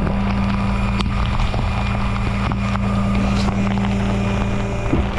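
Tow truck engine running with a steady hum, with scattered clicks and knocks over it.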